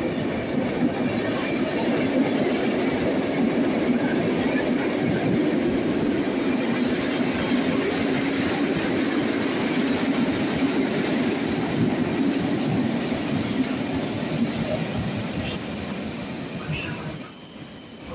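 A long train of locomotive-hauled passenger coaches rolls past a station platform, with a steady rumble and clatter of wheels on rail that eases off as the last coach goes by near the end. A high thin whine comes in just before the end.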